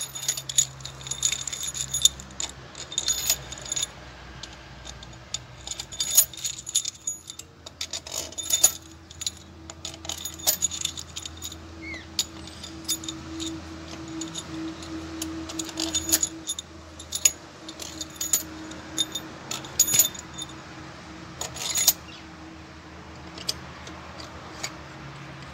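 Long steel cylinder-head bolts clinking against one another and against the cylinder head as they are dropped by hand into their holes, one after another. The sound is a run of sharp metallic clinks in uneven clusters, sparser near the end.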